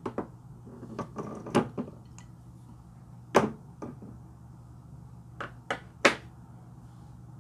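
Hard plastic makeup tubes and a pen being handled over a plate of slime: a dozen or so short, sharp clicks and taps, irregularly spaced, with the loudest about a third of the way in and again near the end, over a faint low hum.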